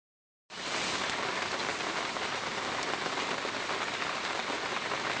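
Steady rain falling, setting in about half a second in.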